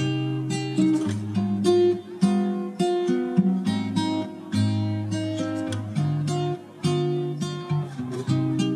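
Background music: acoustic guitar playing a run of plucked notes and chords.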